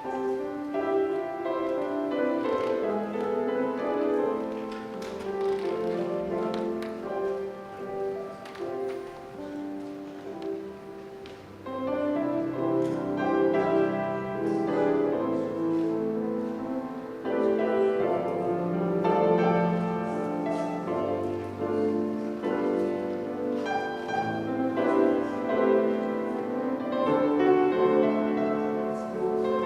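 Instrumental offertory music on a keyboard instrument: slow held chords under a melody, quieter for a moment near the middle and then fuller.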